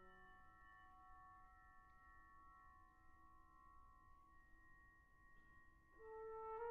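Very soft held brass notes, a few pure tones lingering and swelling slightly. About six seconds in, a louder solo brass note enters.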